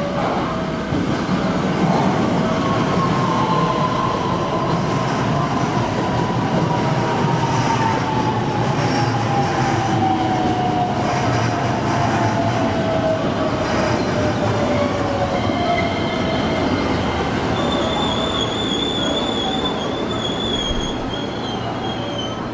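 Electric commuter train running into the platform and slowing, its motor whine falling steadily in pitch under a rumble of wheels on rail. High, wavering brake squeal sets in near the end as it comes to a stop.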